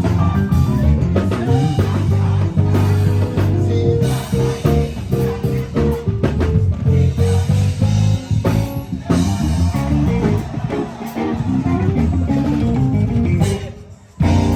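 Live band music with bass guitar, electric guitar and drum kit playing together. Near the end it cuts out abruptly for a moment, then comes straight back in.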